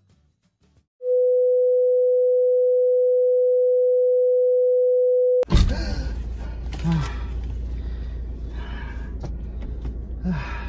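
A loud, steady, pure electronic beep tone held for about four seconds and cut off suddenly. Then a car cabin's low steady rumble takes over, with men's voices and brief vocal whoops.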